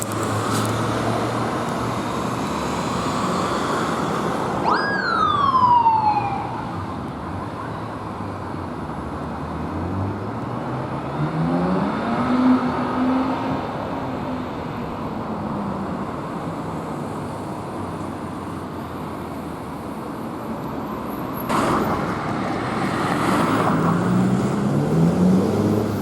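Road traffic noise with a police siren giving one short wail about five seconds in, shooting up in pitch and then sliding down. A vehicle engine speeds up and slows down around the middle, and again near the end under louder passing-traffic noise.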